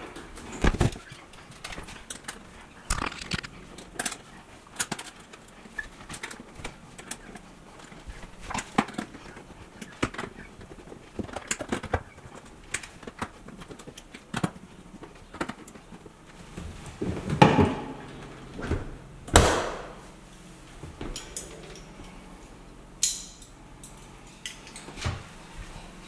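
Scattered clicks, knocks and light rattles from handling a dishwasher's door and racks, with two louder thumps a little past halfway.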